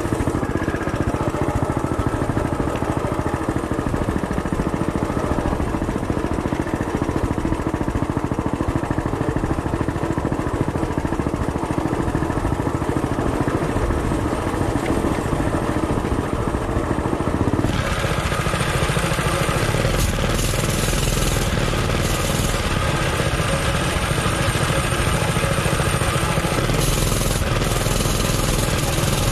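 Modified Coleman BT200X mini bike's engine running steadily under way. About two-thirds of the way through, the sound turns abruptly hissier and brighter.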